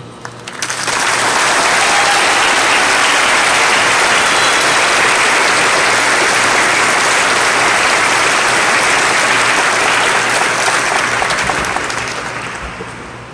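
Audience applauding, starting about half a second in, holding steady, and dying away near the end.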